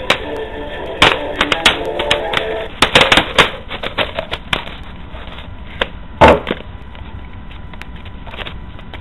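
Irregular sharp clicks and crackles of a plastic water bottle being gripped and handled, dense in the first few seconds, with a heavier knock about six seconds in.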